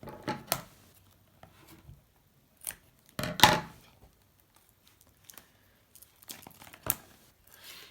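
Sealed box of trading cards being opened by hand: scattered clicks and rustles of the wrapping, with one louder tearing sound about three and a half seconds in.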